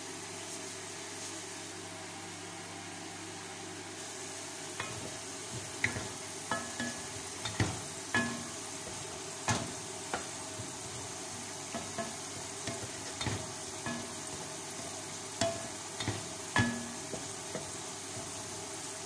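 Wooden spoon stirring dry long-grain rice in a metal pot, knocking and scraping against the pot with short ringing clinks at irregular intervals from about five seconds in. A steady hiss of the rice frying in the hot pot runs underneath.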